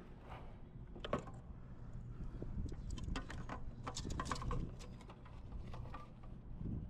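Scattered light clicks and knocks from handling in a kayak, busiest in the middle, over a low steady rumble.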